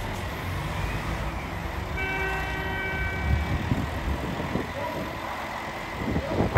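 JR Hokkaido 283 series diesel train moving slowly, its engines rumbling low. A steady horn-like tone sounds for about a second and a half, starting about two seconds in.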